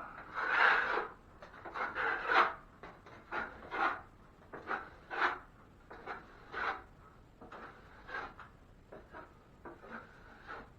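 A 6-inch drywall knife scraping across setting quick-set joint compound in about a dozen short strokes, roughly one a second, loudest near the start: slicking out the patch.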